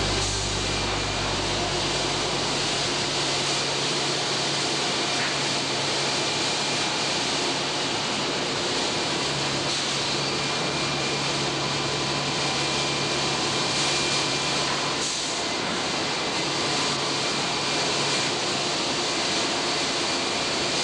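Loud, steady din of paper mill machinery in the finishing area, a constant roar with a few faint steady whines on top.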